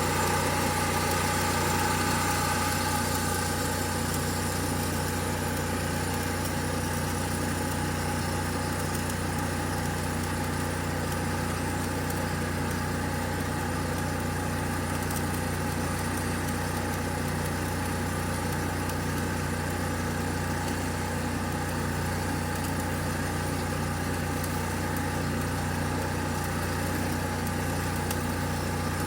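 An engine idling steadily, with an even low hum and a little louder in the first few seconds.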